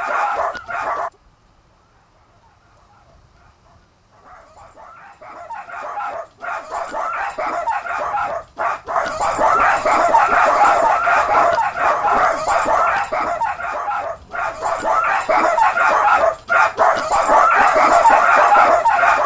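Many dogs barking over one another in a dense, continuous racket. It cuts off about a second in, then after a few near-quiet seconds swells back up and stays loud.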